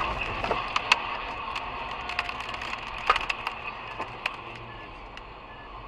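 Debris from a crash alongside striking the car: a scatter of sharp clicks and cracks, loudest about a second in and again about three seconds in, thinning out after about four seconds, over steady road noise heard inside the cabin.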